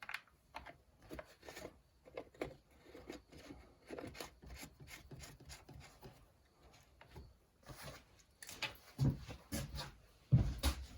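Objects being handled: a run of small clicks, taps and rubbing, with a couple of louder knocks near the end.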